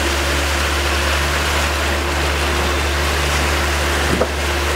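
Boat's outboard motor running at a steady speed, a constant hum, with water rushing and splashing past the hull as the boat trolls.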